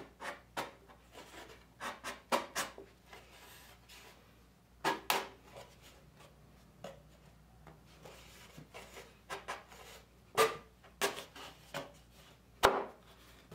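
Thin wooden board being fitted into a wooden case as an inner wall, knocking and rubbing against the frame. A string of short, sharp wooden knocks comes in small clusters, the loudest near the end.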